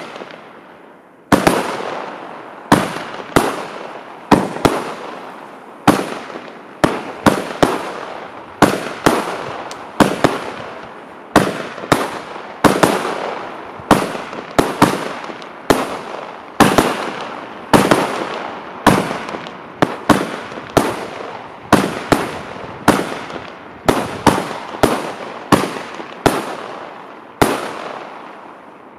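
Röder Crossette XXL Gelb battery firework cake firing shot after shot, roughly one to two a second at an uneven pace, each a sharp bang with a fading echoing tail. The shots stop shortly before the end.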